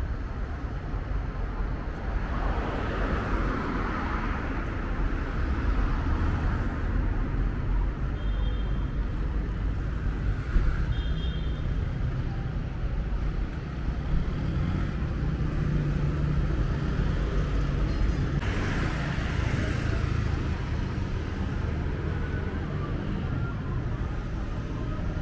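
Busy street traffic: a steady low engine rumble, with vehicles passing close about two seconds in and again near twenty seconds. Two brief high beeps sound around eight and eleven seconds in.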